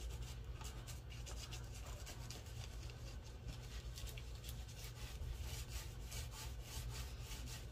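A dried-out wet wipe rubbing lightly over a paper craft tag in quick, soft, scratchy strokes, wiping ink off its shiny parts.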